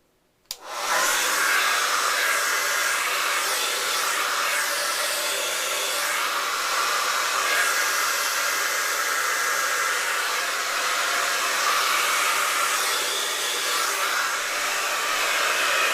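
Handheld hair blow dryer switched on with a click about half a second in, then running steadily on high heat.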